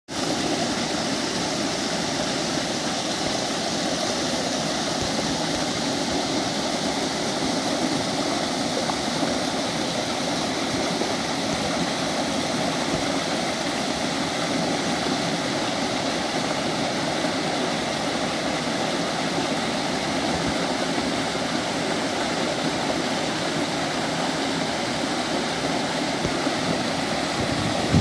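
Small creek cascade: water spilling over rock ledges into a pool, a steady, even rush and splash.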